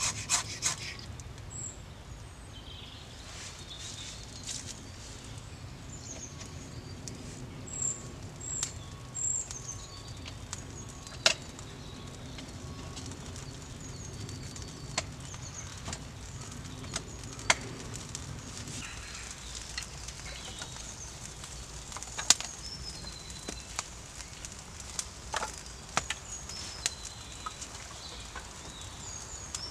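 Small kindling fire of wood shavings, split sticks and twigs catching and crackling, with irregular sharp snaps and pops as the wood burns; small birds chirp in the background.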